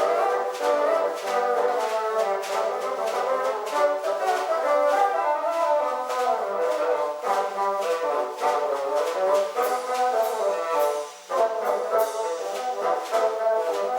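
Bassoon ensemble playing a lively piece, several bassoons sounding parts together with quick, short notes; the music breaks off briefly about eleven seconds in before continuing.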